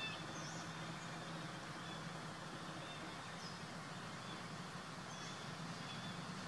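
Outdoor background ambience: a steady low hum with a few faint, short, high chirps scattered through it.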